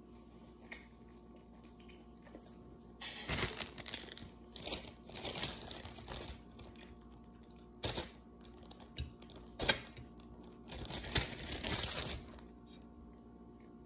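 Clear plastic zip-top bag crinkling as it is handled, in several rustling bursts with a few sharper clicks.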